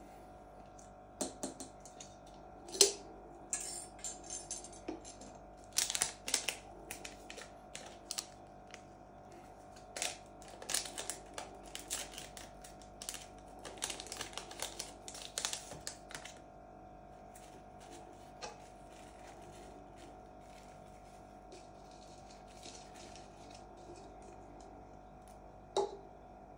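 Hands handling a clear plastic ornament ball and unwrapping a small foil packet: a run of small clicks, taps and crinkling, busiest in roughly the first sixteen seconds with one sharp click near the start, then only occasional taps.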